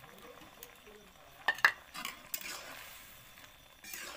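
Metal spatula stirring and clanking against a steel karahi of steaming curry, with two sharp clanks about a second and a half in and a few lighter knocks, over a faint sizzle from the pan.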